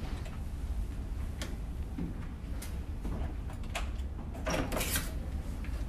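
Hotel room door being unlocked and opened: a few faint clicks from the lock, then a louder latch-and-handle clatter near the end as the door opens.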